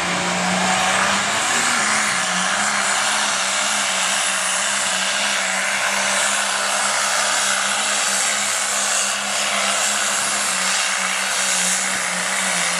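Heavy super stock pulling tractor's turbocharged diesel engine running flat out as it drags the weight sled down the track. A loud, steady engine note holds one pitch throughout, with a dense hiss-like roar of exhaust and turbo over it.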